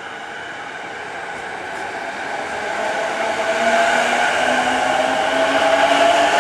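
JR East E233 series 5000 electric train pulling out and accelerating, its traction motor and inverter whine rising in pitch as the train gathers speed, over the rumble of the wheels.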